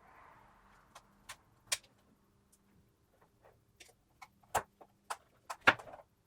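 Small sharp clicks and taps of plastic parts being handled and fitted together on a headset's housing, irregular, with two louder clicks past the middle.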